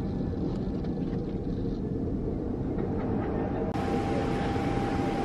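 Steady rumble and hiss of a Boeing 767 airliner cabin, with no engine run-up or speech. About three seconds in a faint steady whine joins, and soon after the hiss turns brighter at a cut.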